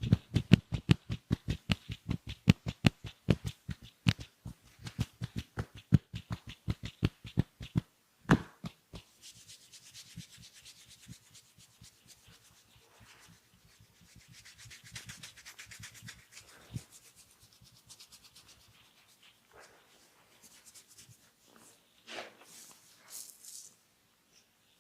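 Massage by hand: a fast, even run of hand strikes on the body, about five a second for roughly eight seconds. Then comes one more strike and a softer, steady rubbing of hands over skin.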